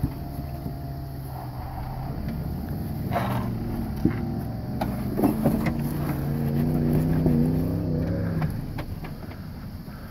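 Jeep Wrangler JK's V6 engine running at low revs as it crawls over rocks, climbing in pitch and loudness from about five seconds in under more throttle, then easing off near the end. A few sharp knocks and clunks of tyres and chassis on rock come between about three and five seconds in.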